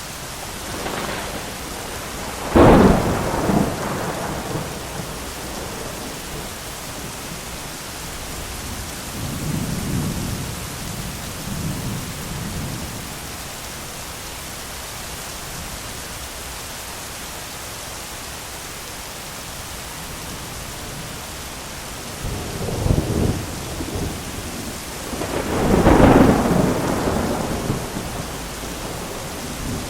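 Thunderstorm: steady rain hiss with rolling thunder. A sharp crack and rumble comes about three seconds in, a softer low rumble follows around ten seconds, and two more peals come near the end, the last the loudest.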